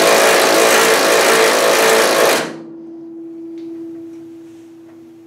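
A loud machine runs with a steady hissing rush and a held tone, then cuts off suddenly about two and a half seconds in, leaving a faint steady hum.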